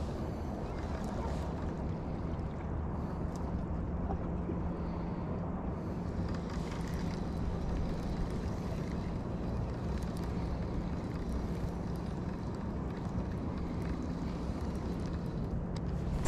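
Steady wind and water noise with a low engine hum that comes in a second or so in and holds steady. A few sharp clicks near the end.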